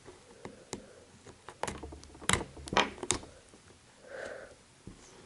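Small scattered clicks and taps of a pry tool working at the edge of an iPhone 5's display as it is levered open, about half a dozen irregular ticks, with a brief soft sound about four seconds in.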